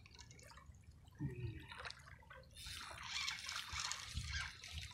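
Small waves lapping and trickling at the edge of shallow, calm water, in uneven splashy patches that grow stronger in the second half.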